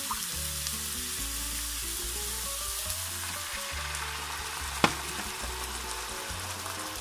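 Diced onion, garlic and carrot sizzling in a wok while chicken broth is poured in and stirred with a slotted spatula. There is one sharp click about five seconds in.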